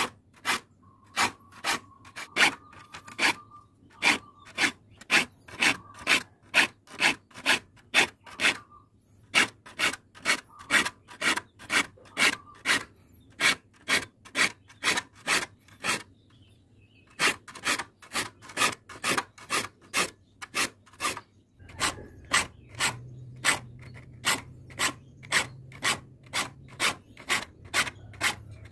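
A file rasping across the teeth of a crosscut handsaw to sharpen it: a steady run of short strokes, about two a second, with a few brief pauses.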